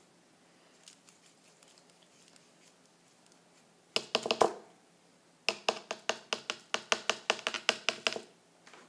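Close, sharp taps and clicks of something hard being handled near the microphone: a short loud clatter about halfway through, then a quick run of taps at about five a second that stops shortly before the end.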